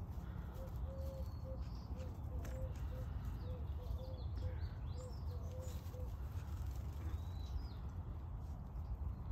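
Soft, short hen clucks repeated two or three times a second for about five seconds, with a few brief high chirps of wild birds over a steady low background rumble.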